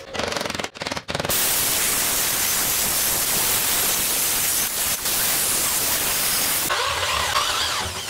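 An abrasive cut-off wheel grinds through steel rebar with a steady, loud hissing grind, and its sound changes about a second before the end. It is preceded, for about the first second, by a broken crackle of arc welding.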